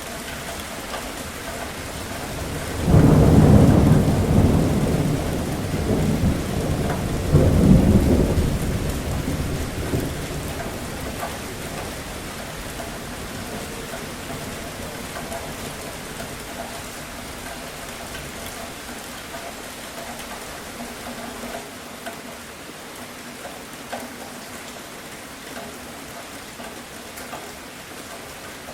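Steady rain falling, with a roll of thunder breaking in about three seconds in, rumbling loudest twice and dying away after several seconds, leaving only the rain.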